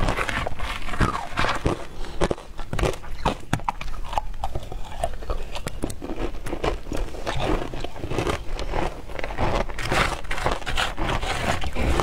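Frozen matcha ice being bitten and crunched in the mouth, with a plastic spoon scraping and scooping the wet, slushy ice in a plastic tub: a dense, steady run of small crackles and crunches.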